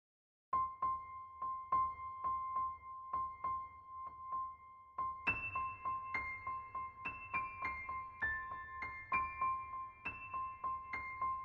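Background piano music. A single high note repeats about three times a second, and a higher melody joins about five seconds in. It starts abruptly after about half a second of silence.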